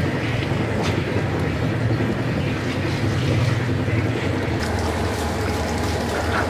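Water running and splashing off a plastic basket of fresh rice noodles as it is lifted from a steel vat of water and rinsed. Under it runs a steady low mechanical hum.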